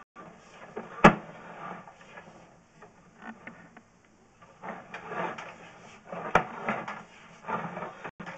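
Sewer inspection camera's push cable being fed down the line: irregular scraping and rustling, with sharp knocks about a second in and again about six seconds in.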